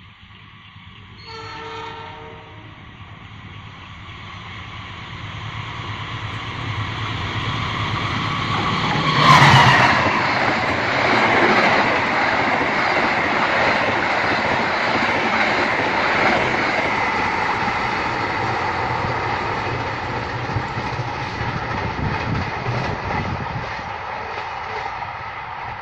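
Passenger train sounding a short horn blast, then approaching and passing close by, wheels rumbling and clattering on the rails. It is loudest about nine seconds in and slowly fades toward the end.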